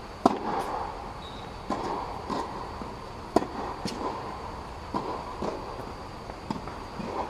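Tennis rally: sharp pops of the ball leaving the racket strings and bouncing on the hard court, about nine in all, irregularly spaced about half a second to a second apart. Each hit echoes briefly under the fabric dome.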